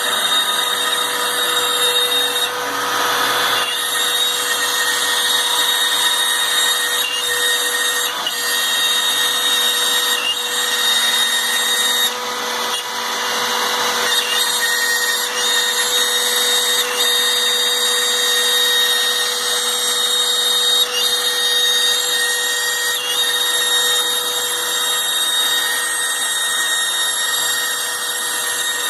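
Homemade CNC router cutting out parts: the spindle motor runs with a steady high whine over the rough noise of the bit milling the stock, with brief louder, rougher stretches about three seconds in and again around twelve to fourteen seconds.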